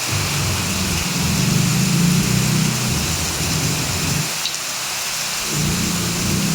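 Heavy rain falling steadily, with a low rumble underneath that fades out about four seconds in and comes back near the end.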